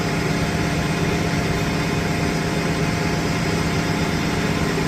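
Bus engine idling steadily with a constant low hum.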